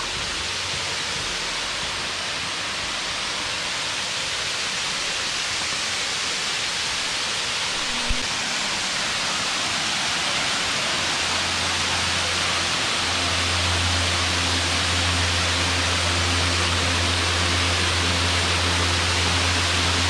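Waterfall splashing down over rock ledges: a steady rush that grows slowly louder as it is approached. A low rumble joins in about two-thirds of the way through, and there is a single click about eight seconds in.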